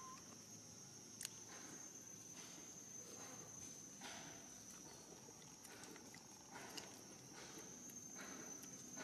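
Faint, quiet outdoor ambience: a steady high-pitched whine throughout, with soft scattered rustles and footfalls and a single sharp click about a second in.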